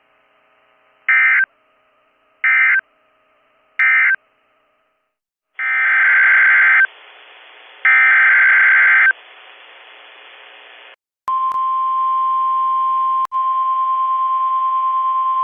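Emergency Alert System tones on NOAA Weather Radio. Three short digital data bursts (the end-of-message code) are followed by two longer data bursts of the next alert's header. About eleven seconds in, the steady 1050 Hz weather-radio warning alarm tone starts, announcing a tornado warning, over faint radio hiss.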